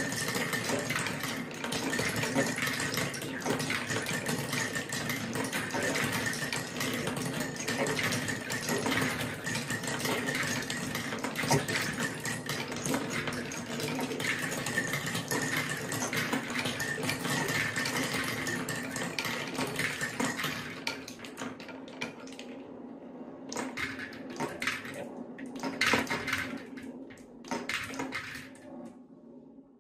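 Dozens of marbles rolling down the wooden spiral tracks of a Quadrilla marble run, a dense continuous rolling and clicking as they run along the grooves, drop into the collecting trays and knock against the marbles already there. About 21 seconds in it thins to scattered separate clicks as the last few marbles come down.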